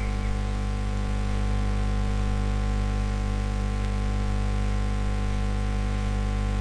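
Steady electrical mains hum with hiss, unchanging throughout.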